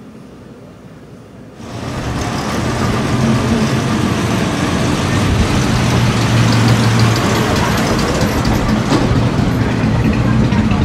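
Ferrari 330 GTO recreation's Tipo 209 V12 engine running steadily at low revs. It comes in loud and sudden about one and a half seconds in, after a quieter start.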